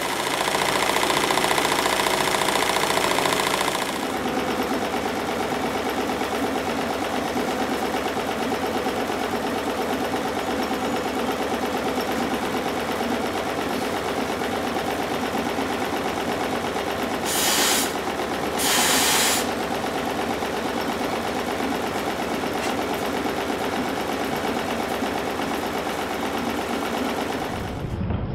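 Stuart triple expansion model steam engine running under steam, a fast even mechanical clatter from its cranks and valve gear. Two short hisses about two-thirds of the way through. The first few seconds carry a louder, brighter run of the same kind of clatter before it changes.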